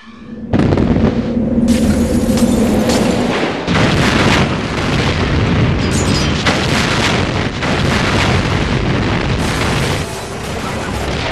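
Loud booming and crashing sound effects. They start suddenly after a brief moment of silence, then run on as a dense rumbling roar that changes abruptly every second or so.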